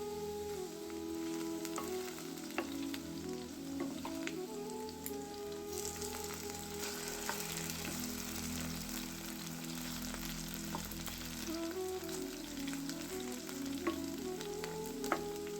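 Spiced potato pieces sizzling as they fry in hot oil in a kadhai, the sizzle getting stronger about six seconds in, with occasional sharp clicks. Soft background music with slow held notes plays underneath.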